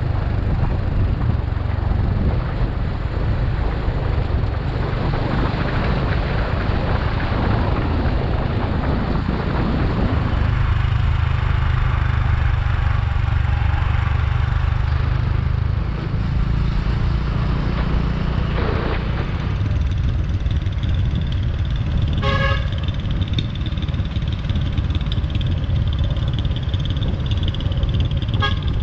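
Motor scooter riding along at speed, its engine hum mixed with heavy wind rush on the microphone. A short horn beep sounds about two-thirds of the way in, and another just before the end.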